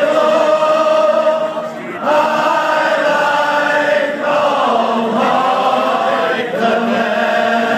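Male voices singing a slow song together in long held notes, the phrases breaking about every two seconds.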